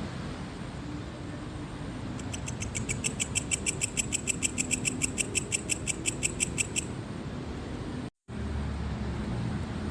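A cricket chirping in an even run of about five chirps a second, starting about two seconds in and stopping near seven seconds, over a steady low rumble of noise. The sound cuts out completely for a moment about eight seconds in.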